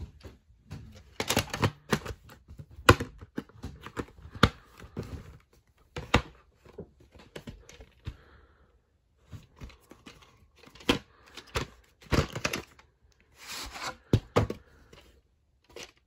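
VHS tapes, hard plastic cases and cardboard sleeves being handled: irregular clicks and knocks of plastic with short rustling and sliding sounds.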